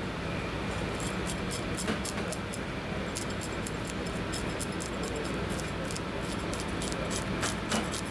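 Kitchen knife blade scraping the scales off a marbled rockfish on a cutting board: quick, irregular scratchy clicks in short runs, over a steady low hum.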